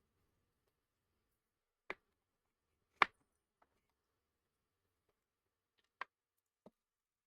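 A few sharp, isolated clicks and taps from small craft supplies being handled on a table, the loudest about three seconds in, with quiet between them.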